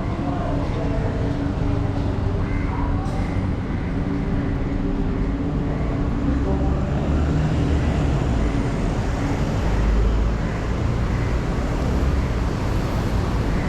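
Singapore MRT train running, a steady loud rumble and rush of wheels and motors, with a motor hum that fades out in the first few seconds.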